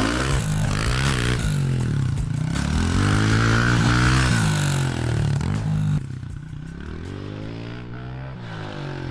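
Pit bike engine revving up and down over and over as it is ridden round the dirt track, the pitch rising and falling with the throttle; it drops quieter about six seconds in as the bike gets farther away.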